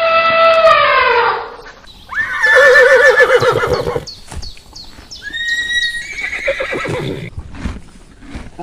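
Horse whinnying: a loud, quavering neigh about two seconds in, then a shorter whinny with snorts and hoof knocks. In the first second a long held animal call falls in pitch and trails off.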